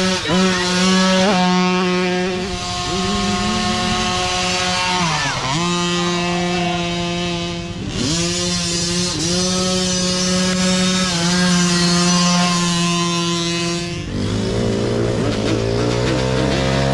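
Small mini dirt bike engines revving high and steady under throttle, the pitch dipping briefly several times. About fourteen seconds in, a lower-pitched engine takes over.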